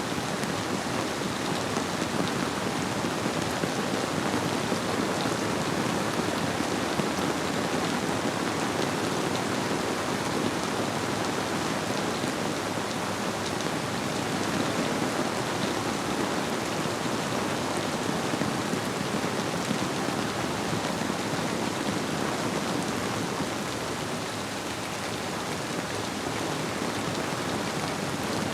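Steady rainfall with a river flowing underneath, an even, unbroken rush of water.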